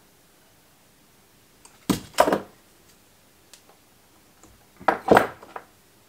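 Two short bursts of light knocking and clatter, about three seconds apart, each made of a couple of quick strikes: small metal tools being handled on a workbench while wires are tinned with a soldering iron.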